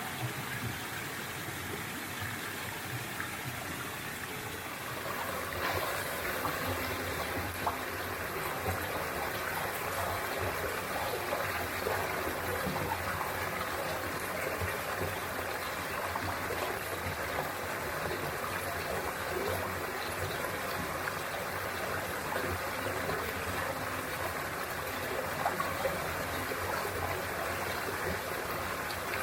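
Mountain valley stream running over rocks, a steady rush of water that gets louder about five seconds in.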